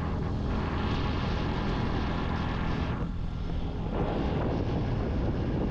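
A moving vehicle's engine running steadily, with wind and road noise rushing over the microphone.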